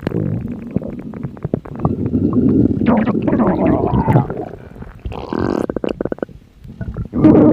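Hungry stomach grumbling: a run of low, gurgling rumbles broken by many short crackly pops, dying down briefly near the end.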